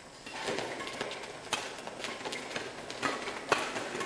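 Badminton rackets striking a shuttlecock in a fast doubles rally: sharp smacks about every half second to second, starting about a quarter second in.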